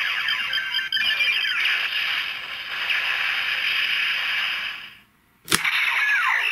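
Kamen Rider Zi-O Ziku-Driver toy belt playing electronic sound effects through its small speaker. A busy synthesized effect with falling sweeps fades out about five seconds in. Then a sharp click sounds, and a new electronic effect starts with a falling sweep.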